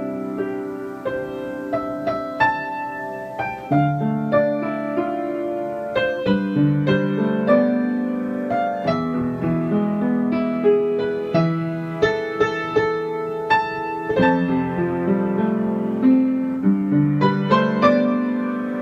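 Piano music: single notes and chords struck one after another and left to ring.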